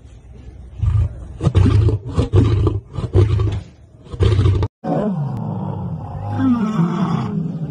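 Lions roaring: about six loud, deep grunting roars in quick succession. After a sudden cut, several lions roar together in one overlapping chorus whose pitches fall.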